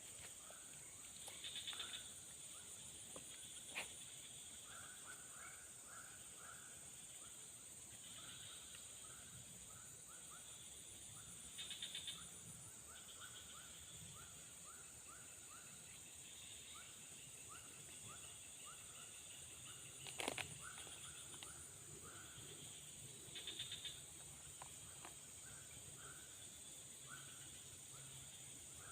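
Faint outdoor ambience of insects and small animals: a steady high insect drone, with runs of short chirps repeated several times a second. Now and then there is a brief buzzy trill, and there are two sharp clicks.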